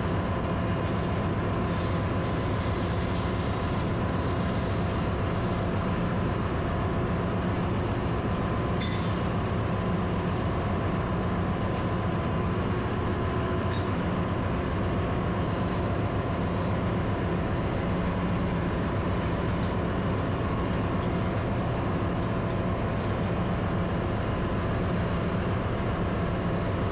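Steady drone of running ship's engine-room machinery, a constant hum with several held tones. A couple of faint clicks sound through it.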